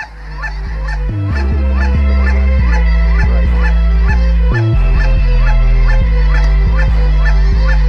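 A large flock of snow geese calling overhead, many short calls at once, over music with a deep bass line; the sound fades in over the first two seconds.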